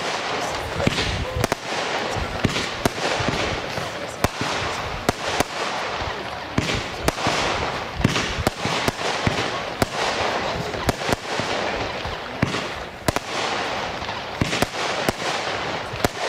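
Weco 'Legend of Heroes' firework battery (468 g net explosive mass) firing shot after shot: sharp bangs about one or two a second at uneven spacing, over a steady hiss and crackle of the rising comets and their bursts.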